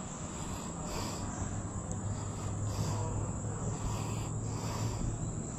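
Insects calling: a pulsing call that repeats about once a second over a steady high tone, with a low hum underneath.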